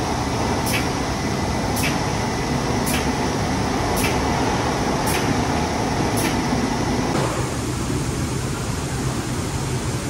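Emme Elle LBAS high-gloss polishing machine running with a steady rush of machine and air noise and a sharp click about once a second. About seven seconds in the clicks stop and the higher hiss drops away.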